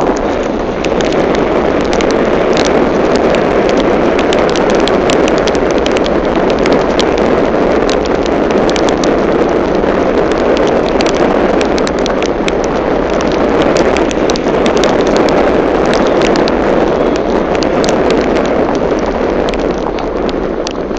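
Heavy rain drumming on a car's roof and windshield, a dense steady pelting full of sharp drop impacts, easing a little near the end.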